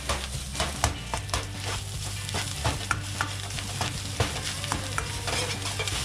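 Fried rice being stir-fried in a wok over a gas flame: a ladle scrapes and clanks against the wok again and again over a steady sizzle.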